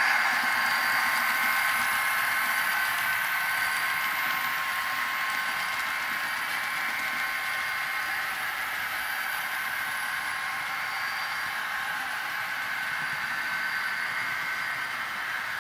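N scale model locomotive with a DCC sound decoder running, its small speaker giving a steady hissy hum with a few faint whine tones and no deep bass. It fades slowly, as the train draws away.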